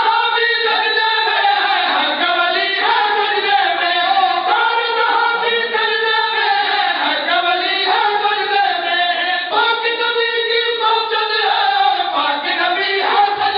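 Several men chanting a devotional verse for Imam Husayn together into a microphone, without instruments, in long held notes that rise and fall.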